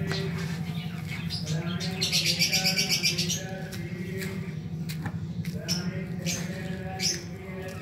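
Pet lovebirds chirping and chattering, with a burst of rapid high chirps about two seconds in and scattered short chirps after, over a steady low hum.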